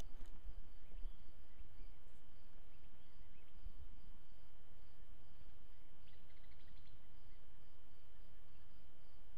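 Outdoor background noise: a steady low rumble with a faint constant high tone, and a few faint bird chirps about six to seven seconds in.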